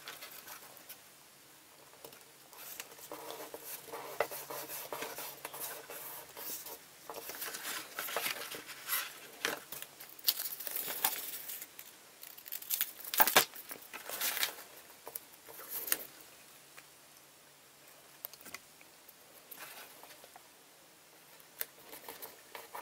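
Hands handling and folding a cardboard toy box and pressing down gummed paper tape: intermittent rustling, scraping and crinkling of card and paper.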